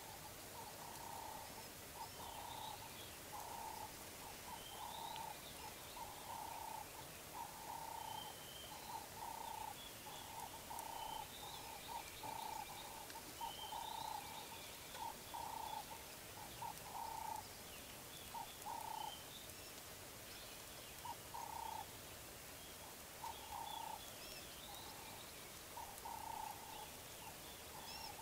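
Faint bush ambience of wild birds calling: a repeated mid-pitched call that comes and goes throughout, with scattered higher chirps over it.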